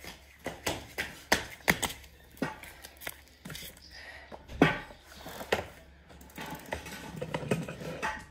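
Sneakers tapping, thudding and scuffing on a hard paved floor during lunges, down and back up. The taps come irregularly, a few a second, and the loudest falls about four and a half seconds in.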